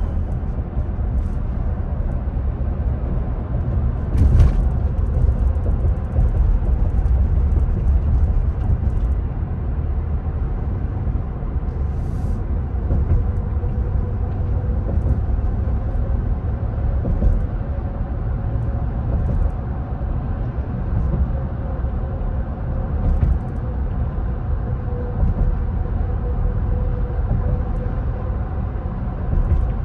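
Steady low rumble of a car's tyre and road noise heard from inside the cabin while driving at highway speed, with a faint hum throughout and a brief thump about four seconds in.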